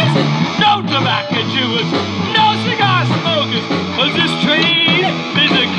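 A live rock band playing an instrumental break: drum kit, electric bass and electric guitars, with bending, sliding lead guitar lines.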